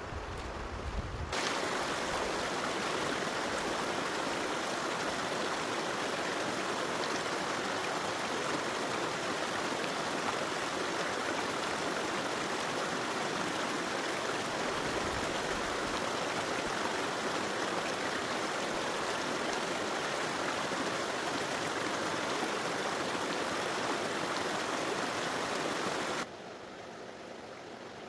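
Steady rushing of flowing river water. It starts abruptly about a second in and cuts off abruptly near the end, leaving a quieter, wind-like hiss with low rumble.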